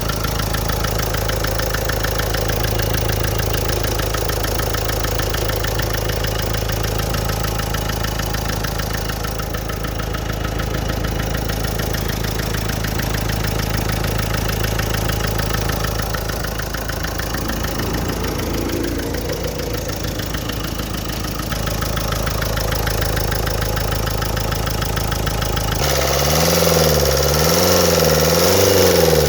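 Nissan Micra engine idling with a steady rhythmic knocking, the 'kat kat' knock that is the engine fault being shown. Near the end the engine's pitch rises and falls several times and the sound gets a little louder.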